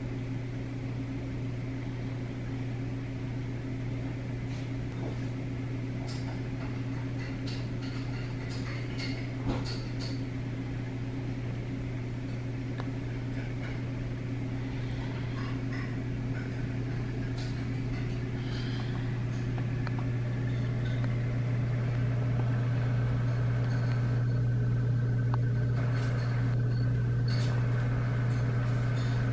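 Steady electric hum of reef aquarium pumps, with a few faint clicks and taps over it; the hum grows a little louder about two-thirds of the way through.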